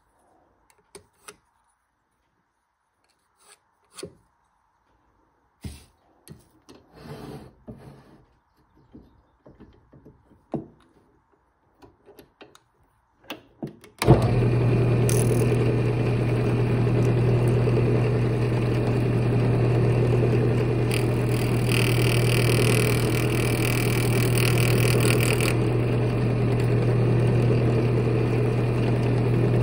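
Scattered light knocks and taps as a wooden lid blank in a lathe chuck is handled. About halfway through, the wood lathe starts suddenly and runs with a steady hum. For a few seconds a brighter hiss joins it as a turning tool meets the spinning wood.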